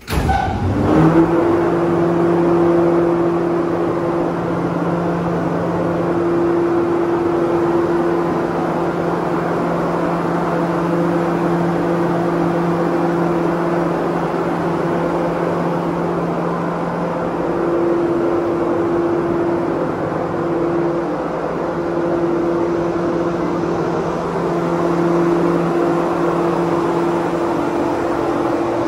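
Paint booth ventilation fan running: a steady hum with a whir of moving air.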